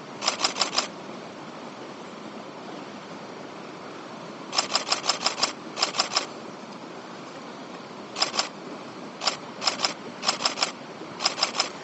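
Nikon D750 DSLR shutter firing in short bursts of continuous shooting: about eight rapid runs of clicks, each a few frames long at roughly six or seven frames a second, over the steady rush of river water.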